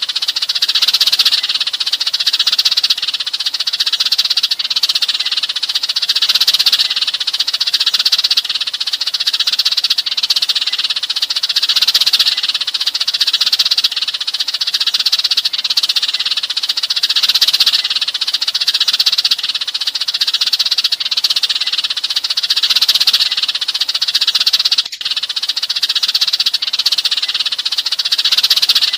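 A flock of Eurasian tree sparrows chirping in a dense, continuous chatter. It is a sparrow flock-calling recording of the kind played to lure sparrows in.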